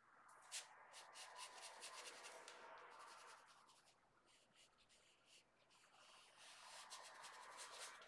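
Faint scratchy rubbing of a small paintbrush working acrylic paint onto canvas paper. It comes in two spells, with a quieter gap about four to five seconds in.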